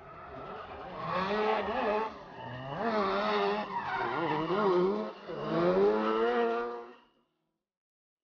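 Drift cars sliding in tandem: engines revving up and down in several surges with squealing, smoking tyres. The sound cuts off suddenly about seven seconds in.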